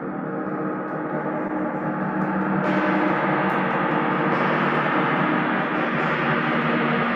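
Large hammered gong played continuously with a mallet: a dense, sustained wash of many overlapping tones that builds in volume and turns brighter about two and a half seconds in.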